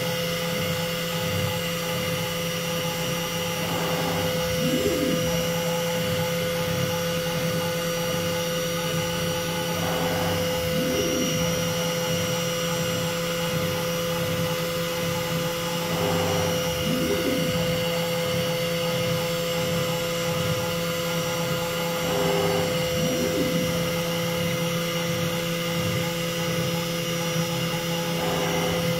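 Home-built four-axis CNC router running with a steady whine and hum. About every six seconds its axis motor speeds up and slows down again in a rising-and-falling sweep as the tilting spindle head moves.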